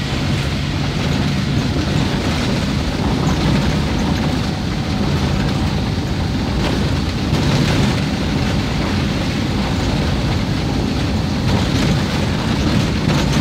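Steady rumble of a vehicle heard from inside the cab as it drives over a rough, wet, unsealed road: engine hum under tyre and road noise, with no let-up.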